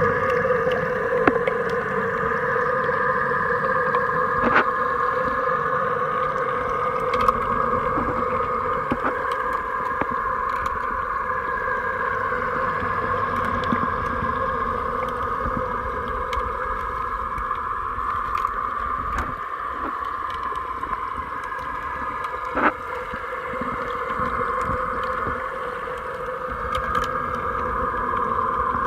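HammerHead electric pool vacuum's motor running steadily underwater as it sucks leaves and debris off the pool floor: a muffled hum with several steady tones and occasional clicks.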